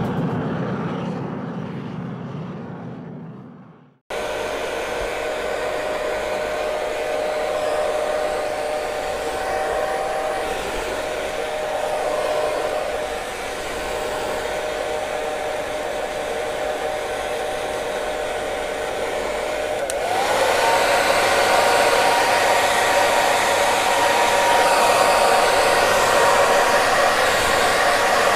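A low rumble fades away to a moment of silence, then a hair dryer starts abruptly and blows steadily, a rush of air with a thin whine. About two-thirds of the way through it steps up louder, its whine sliding up to a higher pitch.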